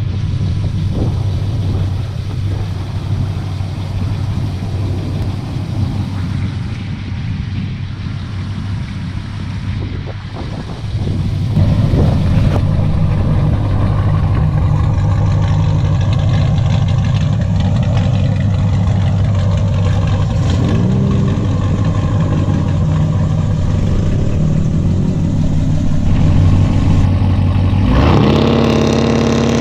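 Ram pickup's Hemi V8 running steadily, idling and creeping along, with a quick rev blip about two-thirds of the way through. Near the end it revs up sharply and holds high, loading up for a burnout.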